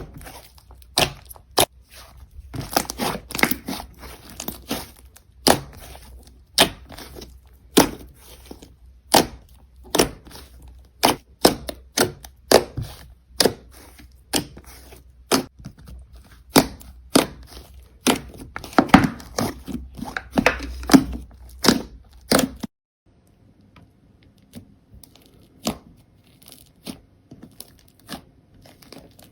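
Slime being pressed and stretched by hand, giving sharp pops and crackling clicks, one or two loud pops a second. The sound drops off suddenly near the end, leaving only faint clicks.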